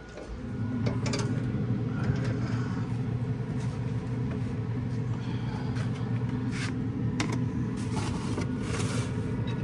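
A steady low mechanical hum starts as the smoker door is pulled open. Short metal clanks and foil rattles come over it as a foil pan is set on the smoker's grate.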